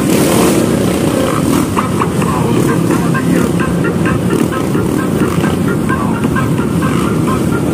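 Engines of a large group of dirt bikes running together at a steady, unhurried pace, one rider close by, in a loud continuous drone with no break.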